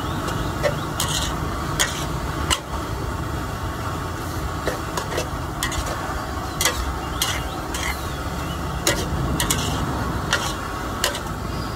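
Metal ladle scraping and knocking against a large wok as noodles and vegetables are stir-fried: sharp clinks every second or so over a steady sizzle and a low rumble.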